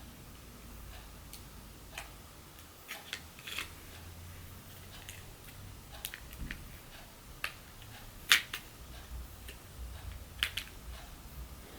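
Scattered small clicks and taps of an opened iPhone's parts and small repair tools being handled, the sharpest about eight seconds in, over a faint steady low hum.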